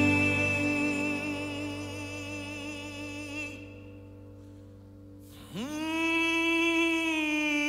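Slow ballad with a male singer: a held note and its accompaniment fade away, then about five and a half seconds in his voice slides up into one long held note.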